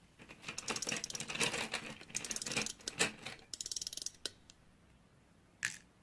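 Clear slime being squished and pulled by hand, giving off rapid crackling clicks and pops for about three seconds, then a few separate pops.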